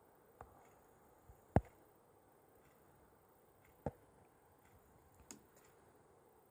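A few short, sharp knocks, the loudest about a second and a half in, over faint, evenly spaced ticking.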